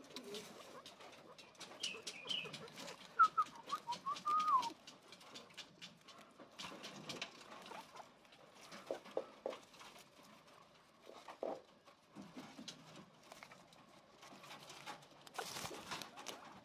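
Guinea pigs rustling and chewing fresh grass, a steady scatter of small clicks and crunches, with a run of short chirping calls about three to four and a half seconds in.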